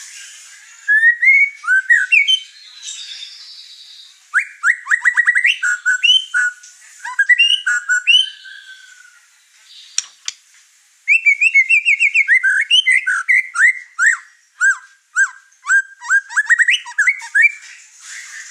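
White-rumped shama (murai batu) singing loudly in an over-excited state, pouring out its repertoire of learned song material. The song is a rapid mix of rich whistles, trills and chirps in phrases with short pauses, with a long run of quick repeated notes in the second half.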